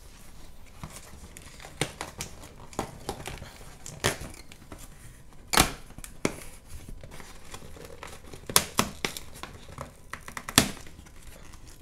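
Reinforced paper packing tape being peeled and torn off a cardboard shipping box, with the flaps rustling as they are pulled open: crinkling and a series of sharp rips, the loudest about two, four, five and a half, eight and a half and ten and a half seconds in.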